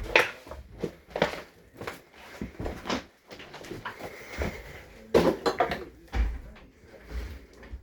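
Scattered knocks, bumps and clatter in a small room, like doors, cupboards and footsteps, with a couple of brief murmured voice sounds.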